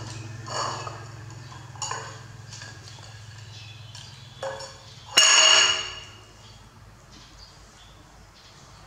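A ceramic plate knocking and clinking on a tiled floor as a monkey handles it, with a few light ringing knocks. A little past halfway comes a loud ringing clatter as the plate comes down on the tiles.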